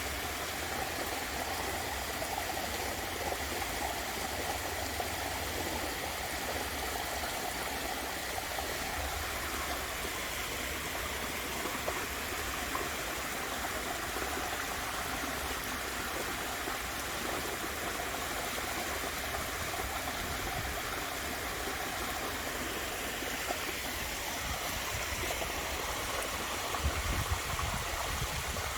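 Waterfall splashing steadily, a continuous rush of water, with a low rumble beneath it that grows stronger near the end.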